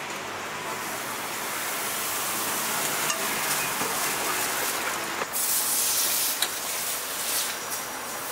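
Crepe batter sizzling on a hot griddle, a steady hiss with a louder surge of hissing about five seconds in and a few light clicks.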